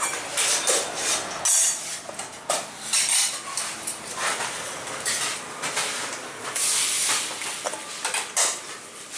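Small metal hopper pans and their lids clattering and scraping as they are handled on a gas stove: a string of short scrapes and knocks, with one sharp knock about a second and a half in.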